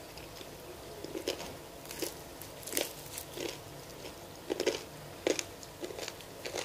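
Crispy deep-fried chicken coating crunching and crackling as hands tear the pieces apart. The crunches come in irregular clusters starting about a second in.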